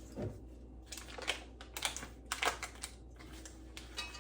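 Irregular light clicks and scrapes of small kitchen items being handled, about eight in a loose cluster through the middle. They come as the cook wipes spilled lemon juice off a bottle and gets the pectin ready.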